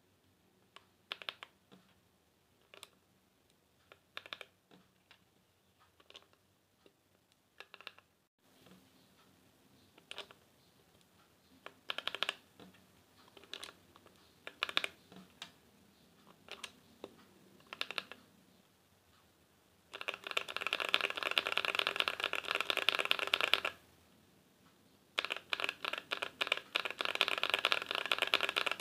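Typing on an Idobao ID80 mechanical keyboard with stock KTT linear switches and Cherry-profile keycaps. Single keystrokes come about a second apart for the first half, then bursts of fast continuous typing about two-thirds in and again near the end.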